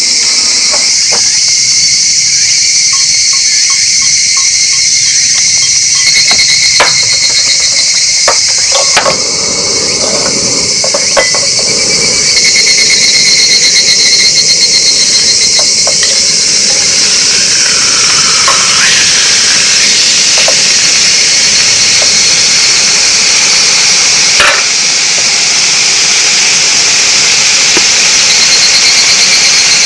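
Chorus of crickets and other insects trilling steadily on a high pitch, with a few scattered clicks and knocks, the sharpest one near the end.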